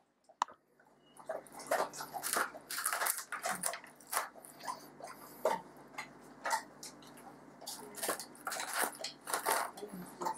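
Fast, irregular crackling and scraping of hands tearing butcher's string off a crisp-skinned roast pork joint on a wooden board, played back sped up. It starts about a second in.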